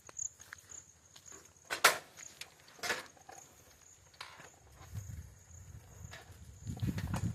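An insect trilling steadily in a high, pulsing tone, with two sharp clicks about two and three seconds in. A low rumble builds near the end.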